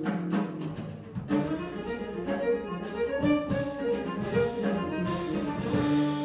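Jazz and world-music quartet recording: a violin plays a melody over piano, bass guitar and drums, breaking into a run of quick notes about a second in.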